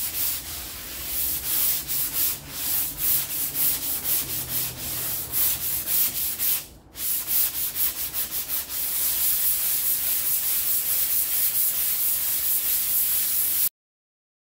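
Sandpaper on a hand sanding pad rasping back and forth over cured Bondo body filler in repeated strokes. There is a brief pause about seven seconds in, then quicker, even strokes of about three to four a second, and the sound cuts off suddenly near the end.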